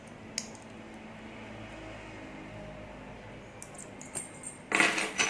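Faint steady hum with a light click early on, then a few clicks and a short loud burst of clattering handling noise near the end, typical of hands working at a computer case while restarting it.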